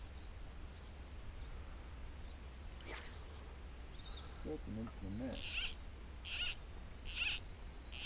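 Cicadas shrilling steadily, with four short hissing bursts about a second apart in the second half.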